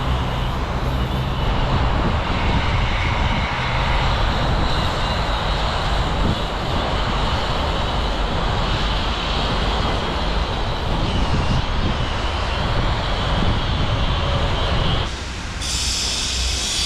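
Loud, steady engine and vehicle roar with a deep rumble. About fifteen seconds in the rumble falls away and a brighter hiss takes over.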